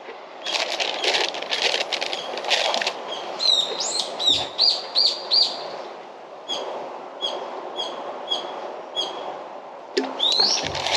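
Small songbird chirping: first a quick run of arched chirps, then short chirps repeated about one and a half times a second. Crunching from chewing crisp chocolate-covered cookies comes in the first few seconds.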